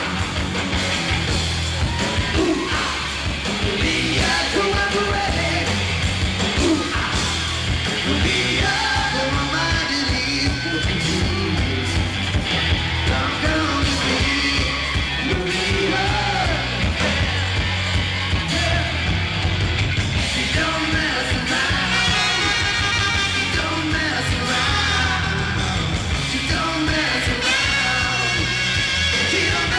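Live rock band playing: electric guitar and drums with a singer yelling and singing over them.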